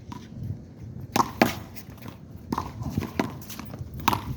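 Handball rally: a rubber handball being slapped by hand and smacking off the wall and court, about five sharp smacks at uneven intervals.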